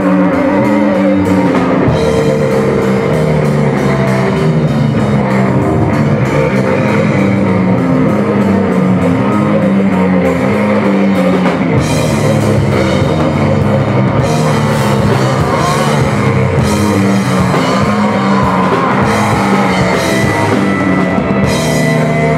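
Live hardcore band playing a heavy song: distorted electric guitars riffing over a pounding drum kit. The cymbals come in harder about halfway through.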